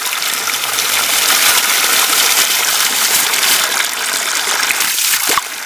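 Water gushing steadily from a pipe spout and splashing into a shallow pool, dipping briefly near the end.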